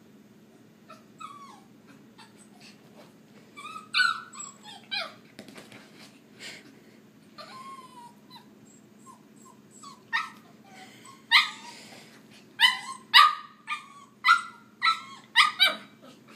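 A puppy whining and giving short yips, then breaking into a quick run of sharp yapping barks, about eight in six seconds, in the second half.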